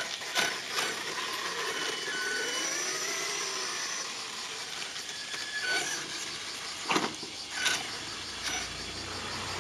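HPI Savage Flux HP RC monster truck's brushless electric motor whining as it drives, its pitch rising and falling with the throttle, with several short sharp knocks or clicks.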